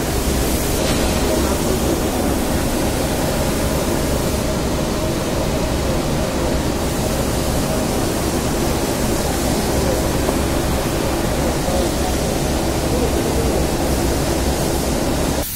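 Steady rushing background noise, even and unbroken, that drops away suddenly near the end.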